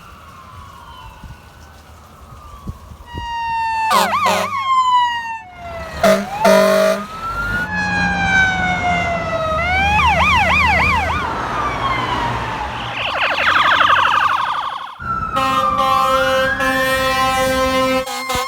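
Fire engine responding with its electronic siren switching between a slow rising-and-falling wail and a rapid yelp, broken by air horn blasts about four and six seconds in and a longer air horn blast near the end over a rising wail.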